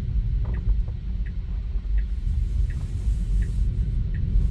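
Steady low road and tyre rumble inside a Tesla's cabin while it drives under FSD Beta. A turn-signal indicator ticks about every 0.7 seconds as the car makes a right turn.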